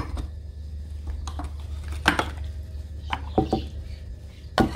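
Metal ladle knocking and clinking against the side of a stainless steel soup pot while stirring, a handful of separate strikes a second or two apart, over a steady low hum.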